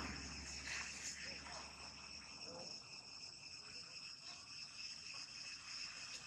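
Faint, steady insect chorus, a continuous high-pitched buzz at an even pitch.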